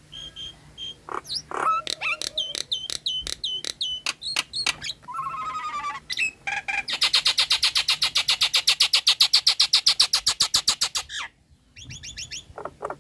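Nias hill myna singing a varied run of loud whistles, clicks and short calls, then a long rapid chattering rattle of about nine pulses a second lasting some four seconds, then more whistles after a brief pause.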